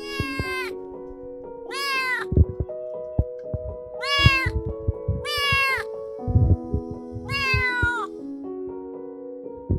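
Kitten meowing five times, each call about half a second long, rising then falling in pitch. Background music with held piano-like notes plays underneath.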